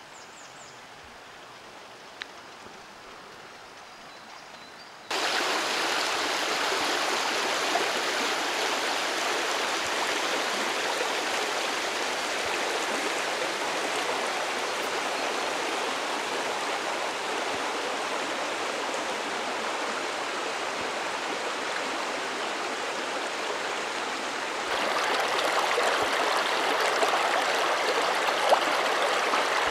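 Low outdoor background, then about five seconds in, the steady rushing of a shallow creek flowing over stones starts abruptly and grows louder near the end.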